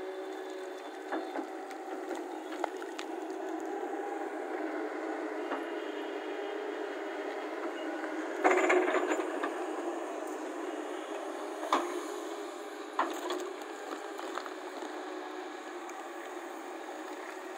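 Hyundai crawler excavator's diesel engine running steadily while it works, with sharp knocks from the steel bucket against earth and rock. Loudest about halfway through, a longer clatter of soil and stones as a bucketload is tipped out.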